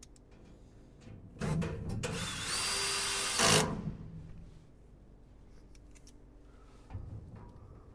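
Cordless drill-driver driving a screw into the cart's metal side panel, running for about two and a half seconds with its motor whine rising, loudest just before it stops.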